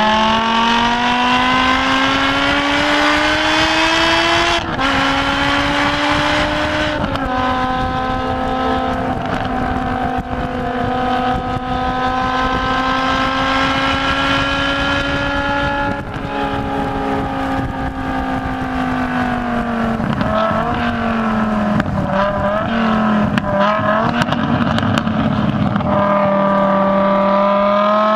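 BMW M6 engine at full throttle on track, its pitch climbing, then dropping sharply at upshifts about five and seven seconds in. It holds a near-steady high note down the straight, falls away under braking from about sixteen seconds with a wavering pitch through the corner, and climbs again under acceleration near the end.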